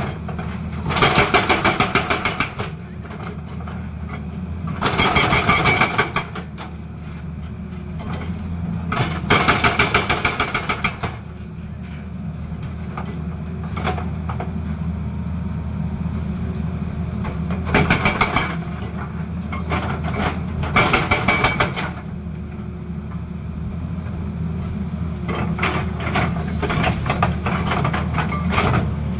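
Hydraulic rock breaker on a Tata Hitachi excavator hammering rock in rapid bursts of one to two seconds, about six times, over the steady running of the excavator's engine.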